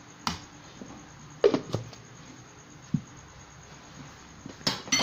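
Thick blended marinade paste poured from a blender jug onto raw chicken pieces in a plastic bowl, with several short knocks and soft plops spread through, the loudest about a second and a half in.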